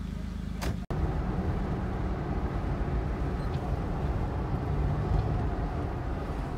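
Steady low rumble of a car driving on a highway, road and engine noise from inside the moving vehicle, after a sharp click and a brief dropout about a second in.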